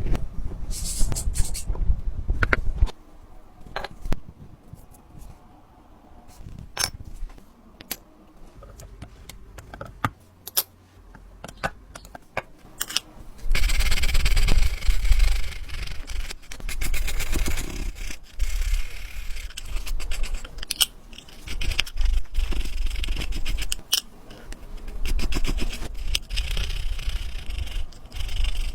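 Small hand tools scraping and rubbing on watch parts, with scattered sharp clicks. The scraping becomes denser and louder about halfway through.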